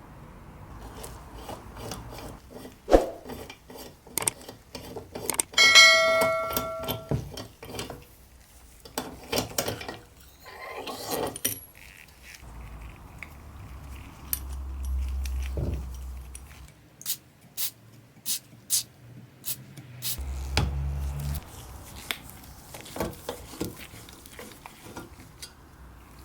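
Metal parts of an old Max Sievert blowtorch being handled: scattered clinks and knocks, with one ringing metal strike about six seconds in. Two short low rumbles come partway through.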